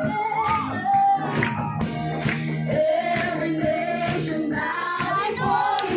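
Live worship song played through a sound system by a praise band with electric guitar, several singers leading the melody over a steady beat.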